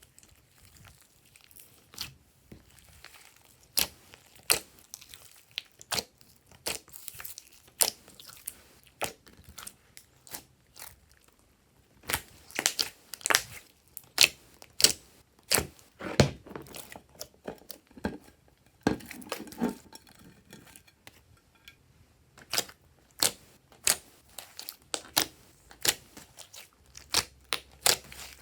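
Hands squishing and poking glossy slime, with irregular sharp pops and clicks as it is pressed and stretched. The pops come thickest in a run about halfway through, with a few fuller, deeper ones among them.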